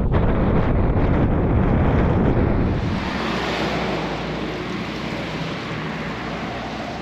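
Wind buffeting the microphone of a moving bicycle, a heavy, deep rumbling noise that changes about three seconds in to a lighter, steady hiss.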